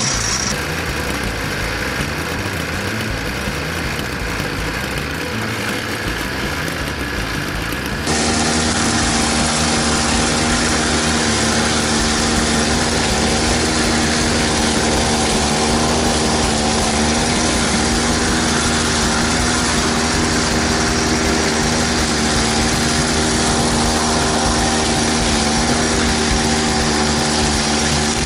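Kyoritsu AZ850 spider mower's small petrol engine running steadily. About eight seconds in the sound changes suddenly and becomes louder, with a steady even hum.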